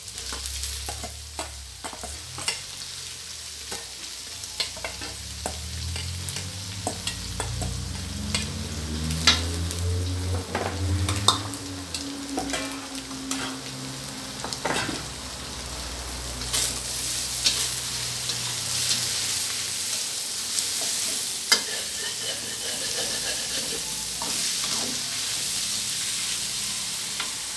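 Sliced bamboo shoots being stir-fried with minced pork and egg in a stainless steel wok: a steady sizzle, with a metal spatula scraping and clinking against the wok. The sizzle grows louder about halfway through.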